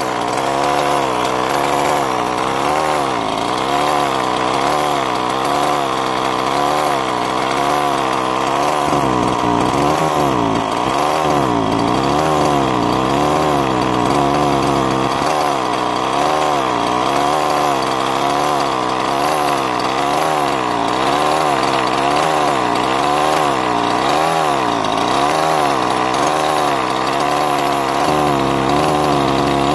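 Small two-stroke gasoline engine of a Losi MTXL truck idling steadily during a heat-cycle break-in, its pitch wavering up and down about once a second.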